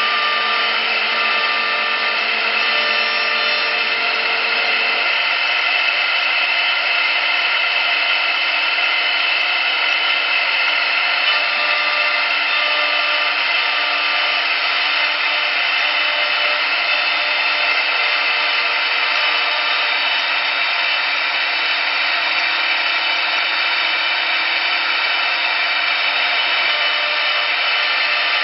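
CNC wood lathe's high-speed router spindle cutting spiral grooves into a turning wooden baluster: a loud, steady high whine mixed with cutting noise. A lower hum drops out about five seconds in.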